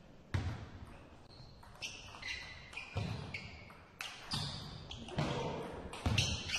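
Table tennis ball clicking sharply off the bats and bouncing on the table during a rally, roughly two hits a second after a short pause at the start.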